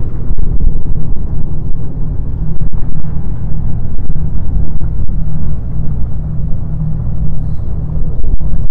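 Strong wind buffeting the microphone: a loud, gusting low rumble.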